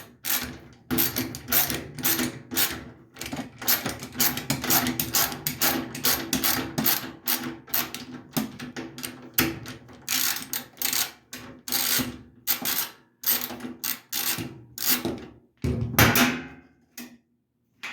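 Socket ratchet clicking in quick runs of sharp clicks with short pauses, as a small ground-wire bolt is being unscrewed.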